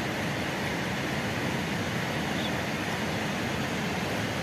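Steady rush of flowing water, an even noise that does not change.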